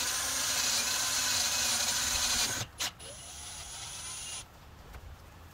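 Power drill running a step drill bit through the battery cover, widening the hole toward 3/4 inch. The steady whine and cutting noise stop about two and a half seconds in; after a click comes a quieter whir that ends a little past halfway.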